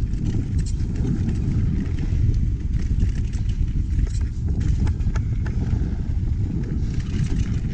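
Mountain bike riding fast down a loose dirt and gravel trail: a steady rumble of wind buffeting the camera microphone, with knobby tyres crunching over the dirt and scattered clicks and rattles from stones and the bike.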